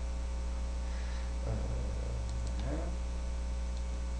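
Steady electrical mains hum with its overtones, the loudest thing throughout. A couple of faint murmurs and a few soft clicks come about halfway through.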